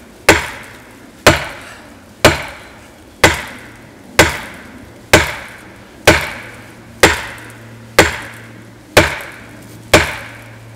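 The handle of a Fiskars 28-inch chopping axe slamming against a hardwood tree trunk in deliberate overstrikes: a sharp whack about once a second, eleven in all, each dying away in a short ring. The handle is taking the blows without breaking.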